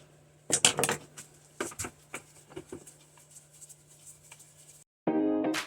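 Scattered clicks and light knocks of a plastic-bodied Black & Decker cordless reciprocating saw being handled. The soundtrack cuts to music about five seconds in.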